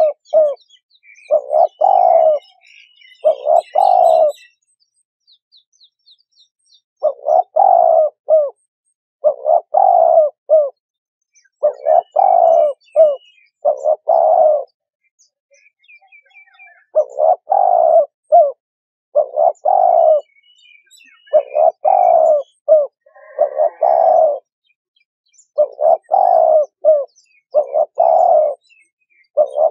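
Spotted dove (cu gáy) cooing over and over, each phrase about a second long, in runs with brief pauses between them. Faint chirps of small birds sound behind it.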